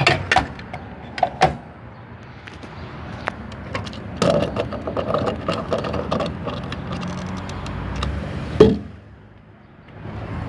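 Gas pump nozzle handled and hung back on the pump with a few sharp clunks, then a run of small clicks and rattles as the car's gas cap is screwed back onto the filler neck, ending in one loud knock, the fuel door or cap being shut.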